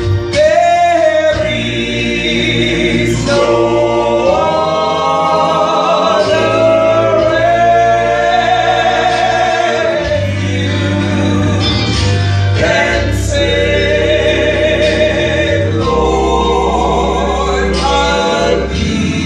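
Gospel vocal group of men and women singing into microphones in harmony, over a low instrumental bass line that changes note every couple of seconds.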